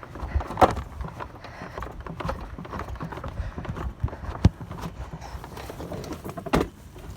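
Footsteps of a person walking while carrying a heavy window air conditioner, with irregular thumps and a few sharper knocks from the unit being handled.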